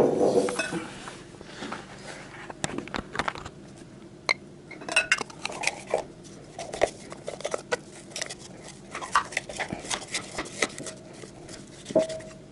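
A small plastic twist-action garlic mill being turned back and forth by hand, its teeth crushing garlic cloves with a run of irregular crunching clicks and crackles. A louder clatter comes right at the start.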